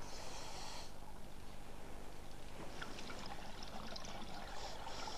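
Faint, steady watery rushing noise of underwater ambience, with a few soft ticks.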